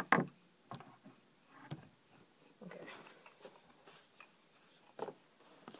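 Paintball markers being handled on a wooden table: scattered knocks and clicks as barrels are fitted and the guns are picked up and set down, the loudest knock right at the start.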